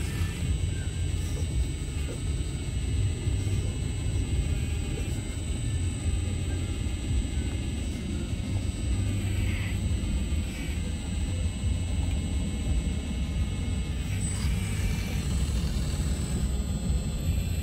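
Scale radio-controlled Volvo excavator model working, its motors running with a steady low rumble and a thin high whine as the arm swings.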